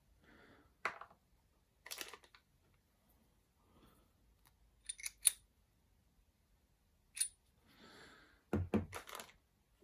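Small steel lathe accessories (a three-jaw chuck and a center) being handled and set down on a tabletop: a few separate sharp metal clicks and clinks, with soft handling noise between them.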